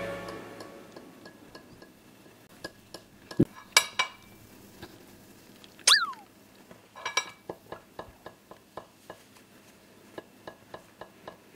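Forks tapping and scraping on a ceramic plate and peeled boiled eggs: a long run of small, separate clicks and clinks, a few louder ones clustered near the middle, with one short falling squeak about six seconds in.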